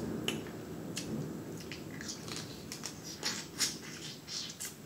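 Eating sounds: a person chewing seafood-boil food eaten by hand, with wet mouth smacks and irregular short clicks.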